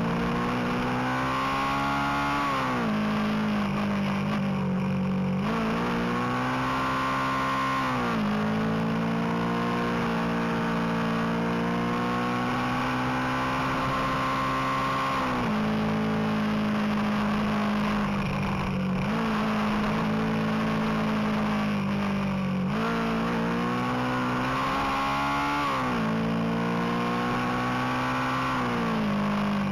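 Motorcycle engine under brisk riding on a winding road, its pitch climbing under acceleration and falling sharply several times between climbs as the revs drop.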